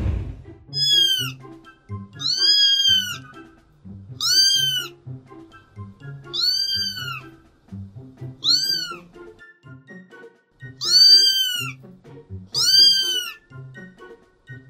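A kitten mewing over and over, seven high-pitched calls about two seconds apart, each rising and then falling in pitch, over background music with a steady beat.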